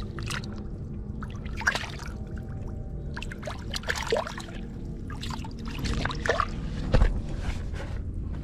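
Shallow puddle water splashing and sloshing as a hand grabs at a carp and the fish thrashes: a run of irregular splashes, the loudest about six to seven seconds in.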